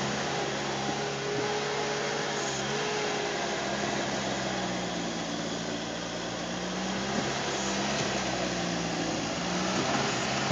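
Engines of a skid-steer loader and a farm tractor running together at close range, a steady mechanical drone whose pitch drifts slightly up and down as the machines work.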